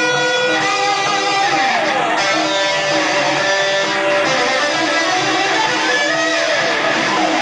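Instrumental break of a rock song: electric guitar playing held notes, with a few sliding bends in pitch over a steady band backing.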